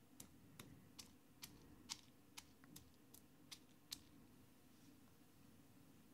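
Granite pestle pounding roasted whole spices (coriander and cumin seeds, dried red chillies) in a granite mortar: faint, irregular sharp clicks, about two a second, stopping about four seconds in.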